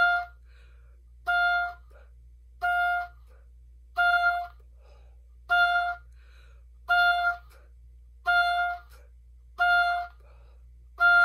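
Oboe playing the same short note over and over, about one every second and a half, with faint breaths in the gaps between notes. This is the puff breathing exercise: each rest is either an inhale, a small puff of air out, or a full exhale.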